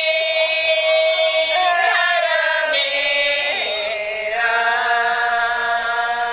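A devotional prayer chant sung in long held notes, the pitch dipping and settling on a new note about halfway through.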